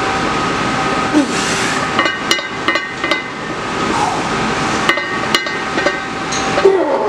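Loaded barbell's iron plates clanking and ringing against the bar and collars during back squat reps, several sharp metallic clinks. A strained grunt or exhale comes with each rep, the loudest near the end.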